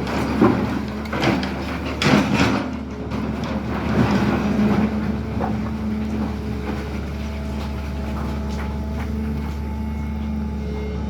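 SANY hydraulic excavator's diesel engine running steadily, with several knocks and scrapes in the first four seconds or so.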